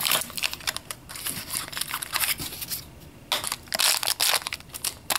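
Foil packet crinkling and rustling as hands handle and open it, a run of short crackling rustles with a brief lull around the middle.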